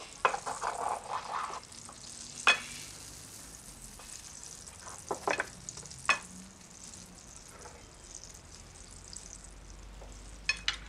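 Sliced porterhouse steak sizzling on a hot serving platter: a steady, high-pitched hiss. A serving fork clinks against the platter a handful of times.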